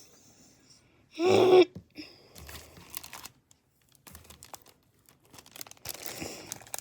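Paper and tape crinkling and tearing in irregular rustles and small clicks as homemade paper squishies are handled. About a second in there is one short, loud vocal sound.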